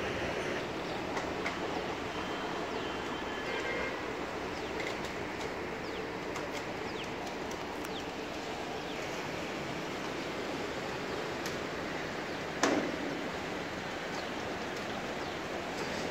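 Steel truss bridge girder being rolled forward on its launching trolleys and rails: a steady rolling noise with scattered light metallic ticks and one sharp clank that rings briefly, about three-quarters of the way through.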